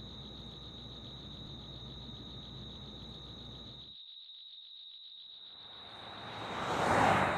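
Crickets trilling steadily over a low rumble, which drops out about four seconds in. Near the end a whoosh swells up and peaks just before the end.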